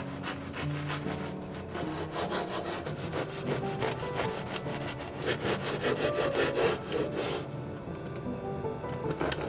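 A knife sawing through a crusty baguette on a wooden cutting board: rapid back-and-forth strokes with the crust crackling, stopping a couple of seconds before the end.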